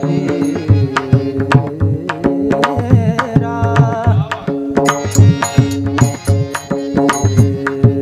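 Pakhawaj drumming in a fast, dense rhythm over a steady harmonium drone: the instrumental accompaniment of a Marathi kirtan chal.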